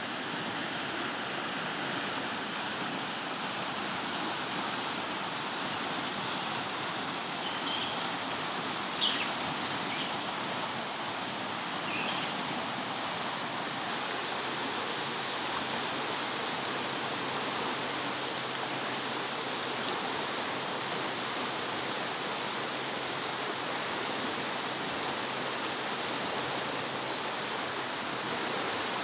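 A fast, swollen, muddy river in spate, a steady rush of water. A few short high chirps come through between about seven and twelve seconds in.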